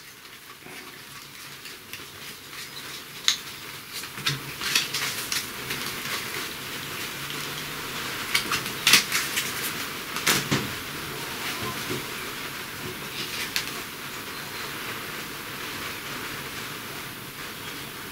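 A deck of Dixit cards being shuffled by hand, a continuous papery rustle with sharp snaps and taps as cards are squared and laid down on the cloth-covered table, loudest about nine and ten and a half seconds in.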